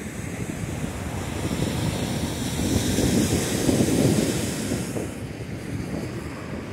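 Wind buffeting the microphone over the wash of ocean surf, swelling about three seconds in and easing off again.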